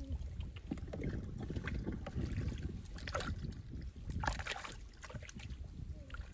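Hands splashing and sloshing through shallow muddy water, with irregular small wet splats and drips, heaviest about three and four seconds in.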